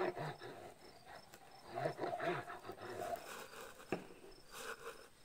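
Crickets chirping faintly and steadily in a quick regular rhythm, with soft handling and squeezing sounds as white glue is drawn in lines from a squeeze bottle onto a cardboard box. A single sharp click comes about four seconds in.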